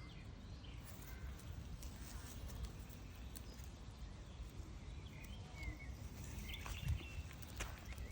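Faint outdoor ambience: a steady low rumble of background noise with a few short, high bird chirps and scattered faint clicks.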